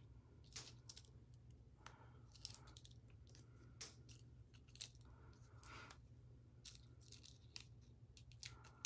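Faint paper-handling noises: scattered soft crinkles and ticks as adhesive foam dimensionals are peeled from their backing sheet and pressed onto a die-cut paper poinsettia, over a low steady hum.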